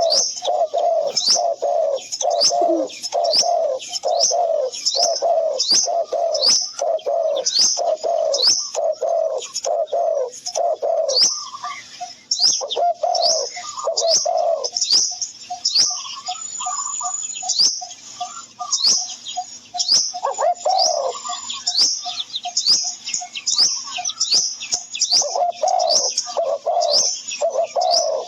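Birds calling, with no speech: a low note repeated about twice a second under a quick high chirp that repeats throughout. The low calls thin out for several seconds in the middle.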